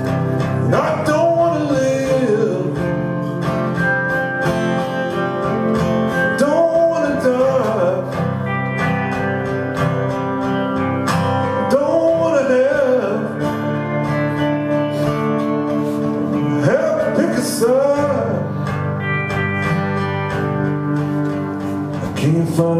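Live acoustic guitar strumming steady chords, with a lead line of bending notes that comes back about every five seconds between lines of the song.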